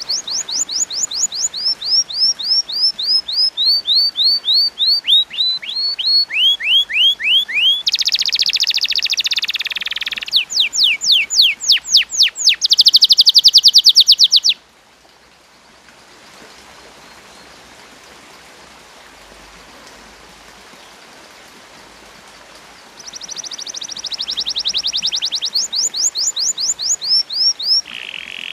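Domestic canary singing: long runs of quick repeated chirps, about four a second at first, speeding into a very fast trill around twelve seconds in. The song breaks off about halfway for several seconds, then starts again with more rapid repeated notes.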